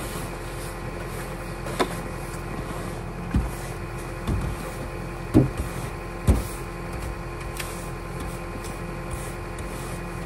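Snow brush sweeping dry snow off a car's hood, with five dull knocks of the brush in the first six seconds or so. Under it runs the steady hum of the car idling.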